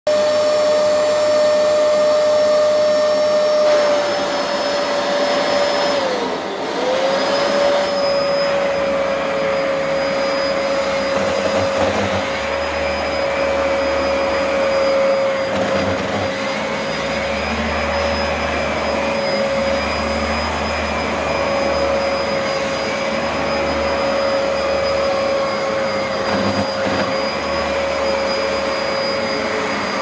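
Vax Platinum Power Max upright carpet washer running, a steady high motor whine. About six seconds in the pitch sags briefly and recovers, and in the second half a lower rumble comes and goes under the whine.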